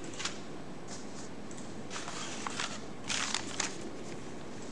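Faint steady hiss of room noise with a few soft clicks and rustles, a cluster about two seconds in and another a little after three seconds.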